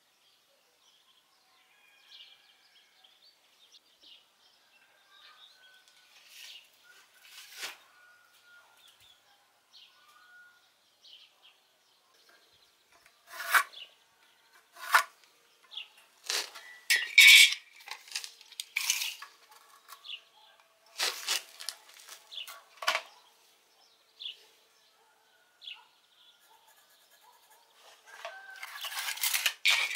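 Measuring tools handled on a wooden plank: a carpenter's square and tape measure set down and moved about, giving a string of sharp clacks and clinks through the middle. A longer scraping rattle comes near the end.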